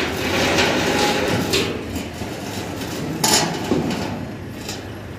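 A few sharp metallic knocks and clanks from work on the arched steel roof sheets of a self-supporting shed, the loudest about three seconds in with a short ring after it, over a steady background of wind and site noise.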